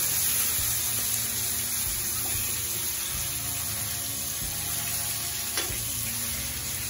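Snakehead fish steaks sizzling steadily in mustard oil on a flat iron tawa, with a metal spatula working the pieces and one sharp tap on the pan about five and a half seconds in.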